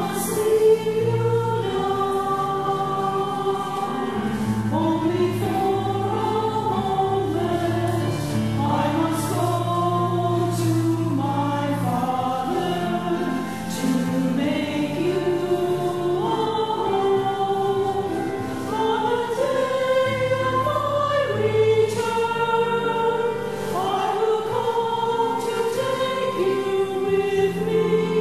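Mixed church choir of men and women singing a hymn, with sustained low notes beneath the moving vocal lines.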